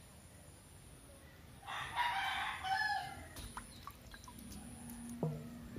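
A rooster crowing once, about two seconds in, followed by a few short ringing clinks.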